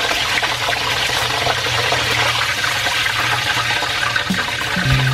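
Hot oil sizzling and crackling around a whole chicken deep-frying in a steel wok, a dense hiss of tiny pops, as the chicken is lifted out on a perforated skimmer with oil dripping back into the pan. Music starts about four seconds in.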